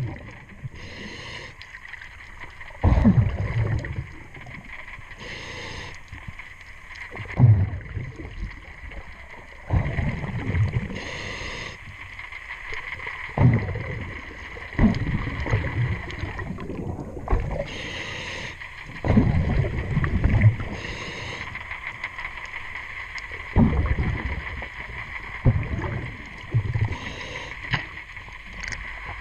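A diver breathing underwater through a regulator: a short hiss on each inhale and a low rush of exhaled bubbles, repeating about every four to five seconds.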